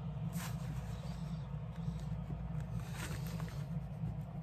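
End-cutting pliers working at a jiffy rivet on a leather handle tab, giving a few faint metal scrapes and clicks over a steady low hum.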